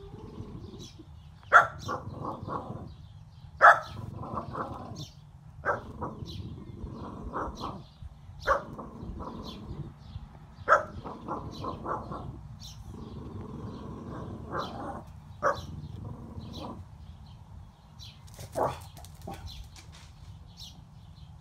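French bulldog giving sharp, loud yips every two to three seconds, each followed by a run of softer, quicker whining sounds, in excitement at a rabbit it cannot reach.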